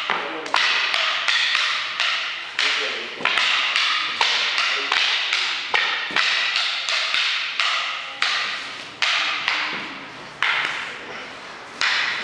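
Short wooden fighting sticks clacking against each other in a sparring drill: sharp strikes that come irregularly, one to two a second and sometimes in quick pairs, each with an echoing decay.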